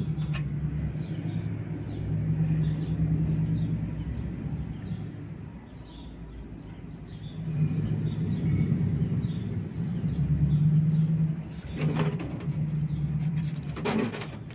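A low engine hum that swells and fades several times, with faint bird chirps and two brief knocks near the end.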